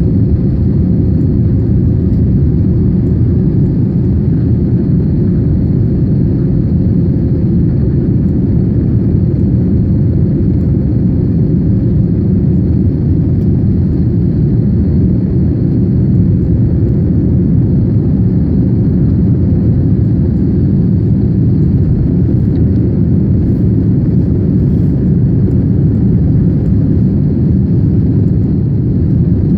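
Jet engines of an Airbus A321neo airliner: a loud, steady low rumble with a faint high tone above it, holding level without rising or falling.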